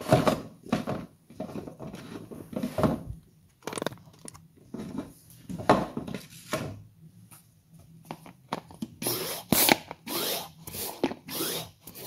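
Plastic parts of a Polins Garden 5 pressure sprayer being handled: the pump top being worked off the bottle and the plastic pump cylinder drawn out. It sounds as irregular clicks, knocks and scraping, with a quick run of scraping strokes near the end.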